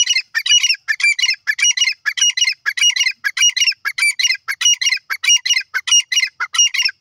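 Grey francolin (teetar) calling: a loud, rapid run of shrill, repeated phrases, about two to three a second.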